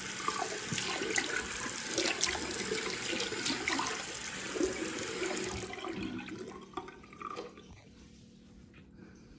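Water running from a tap into a sink, with light knocks and clinks; the water stops about six seconds in, leaving a few faint knocks.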